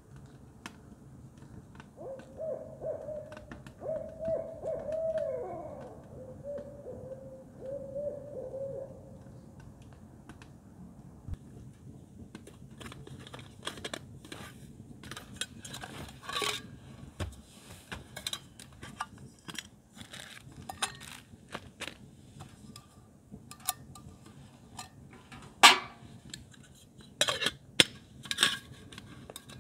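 An owl hooting a series of calls, with a downward slide partway through. After it, a run of sharp clicks and knocks, the loudest near the end.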